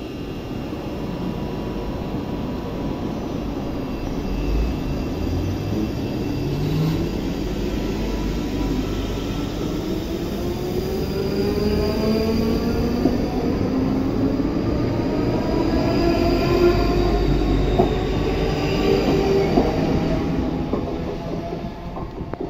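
An electric multiple-unit train pulls away, its traction motors whining in a steadily rising pitch as it accelerates, over wheel and rail rumble. The sound grows louder as the carriages go past, then fades near the end.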